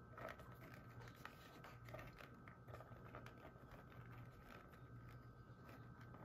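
Faint scattered clicking and rattling of dried peas being stirred and picked over by hand in a plastic colander, over a faint steady hum.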